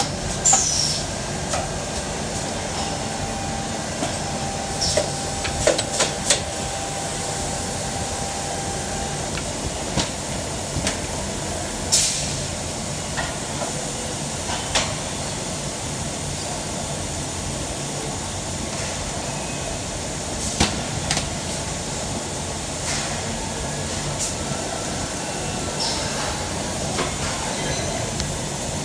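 Injection moulding machines and a servo inserting robot running steadily on a factory floor. About a dozen short, sharp clicks and hisses are scattered through the steady noise.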